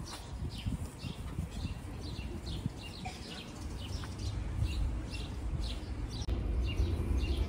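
Songbird chirping over and over: short, high notes that slide downward, about two to three a second. A low rumble underneath grows louder over the last second or so.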